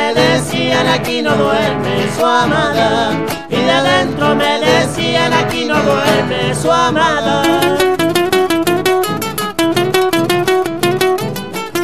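A gato cuyano folk song played on Spanish-style criollo acoustic guitars, with voices singing the melody over strummed and picked chords. About eight seconds in, the guitars change to fast, even strumming under one long held note.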